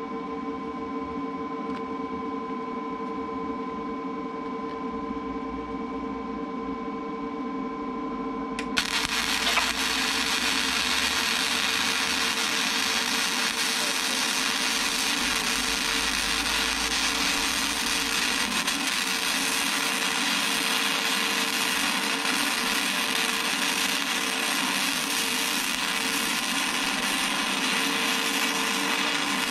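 Electric arc welding on steel: after a steady hum, the arc strikes about nine seconds in and a steady crackling hiss runs on as a stringer bead is laid over the root pass.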